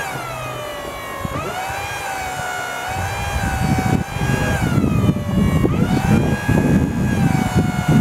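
Electric hydraulic pump motor of a 24-volt Genie Z45/22 boom lift running with a loud whine, its pitch dipping and recovering several times as the drive and flow control load the pump. From about three seconds in a rough low rumble joins the whine.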